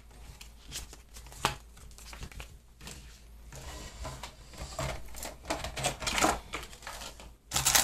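Hands handling a trading-card tin's plastic insert and packaging: scattered light clicks and rustles that grow busier in the second half, ending in a loud burst of rustling near the end. A steady low hum lies under it.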